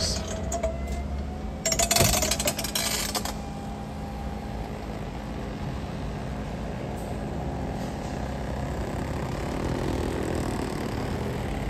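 Power convertible top of a 1970 Buick Skylark lowering: its electric-hydraulic pump motor runs steadily while the top frame folds back, with a clatter lasting about a second and a half, about two seconds in.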